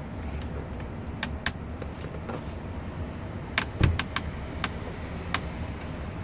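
Sharp plastic clicks and taps as gauge needles are pressed onto the spindles of a Ford F-150 instrument cluster, about eight in all, several bunched together midway with one heavier knock, over a steady low hum.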